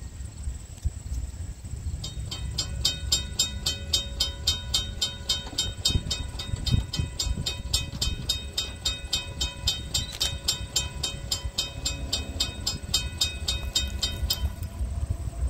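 Railroad grade-crossing warning bell ringing in rapid, even strikes, starting a couple of seconds in and cutting off near the end, activated by a train approaching down the line. A low rumble runs underneath.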